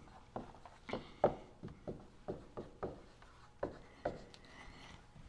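Dry-erase marker writing a word on a whiteboard: a series of about ten short strokes, with a short pause around three seconds in.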